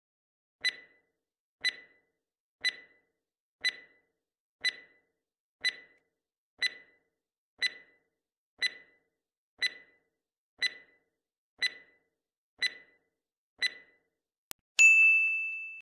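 Countdown timer sound effect ticking once a second, fourteen ticks in all. Near the end a single bright ding rings out and fades as time runs out.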